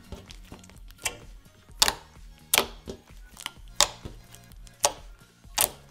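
Glossy pink basic slime being pressed, poked and stretched by hand, giving sharp sticky pops and clicks at irregular spacing, about one a second.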